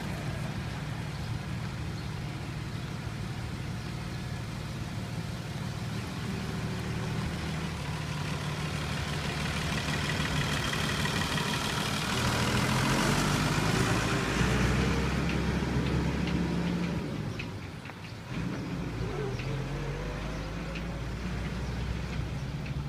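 Tractor engines running as tractors pass along the road. The engine sound is loudest when a tractor goes by close, a little past the middle. It drops away briefly about 18 seconds in, then picks up again.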